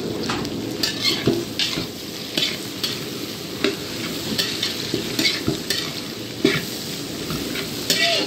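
Shredded cabbage, onion, carrot and capsicum sizzling in a metal wok. A spatula scrapes and tosses them against the pan about once or twice a second.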